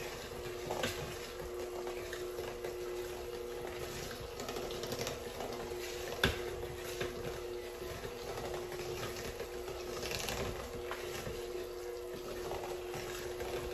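Mashed sweet potatoes being mixed in a bowl, with soft squishing and scraping of the utensil and scattered light taps, over a steady hum. A single sharp click about six seconds in.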